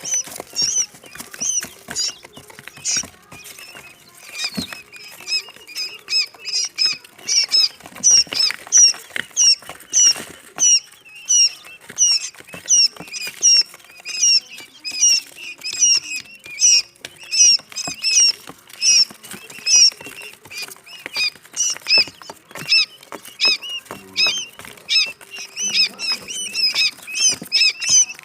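Quail chicks peeping: short, high-pitched peeps, about two or three a second, overlapping.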